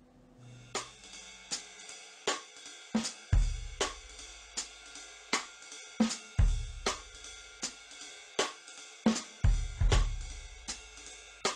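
Background music: a slow drum-kit beat with a cymbal strike about every three-quarters of a second and a deep bass-drum hit about every three seconds, starting just under a second in.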